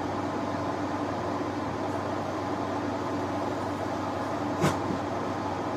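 Steady low hum of room background noise, with one short sharp knock about four and a half seconds in.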